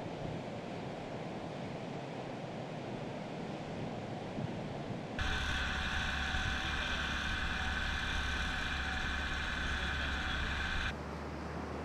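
Wind and sea noise on the microphone, then a small quadcopter drone's propellers cut in with a steady whine of several tones over a low hum, lasting about six seconds before cutting off abruptly.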